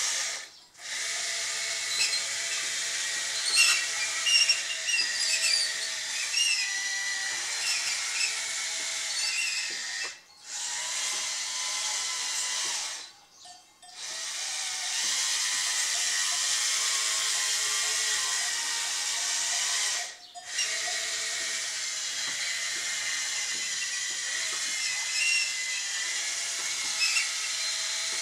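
Small electric drive motors and gearboxes of a radio-controlled Bruder CAT D11 bulldozer model whining as it drives and pushes sand, the pitch wavering with speed. The whine stops briefly four times, the longest pause about halfway through.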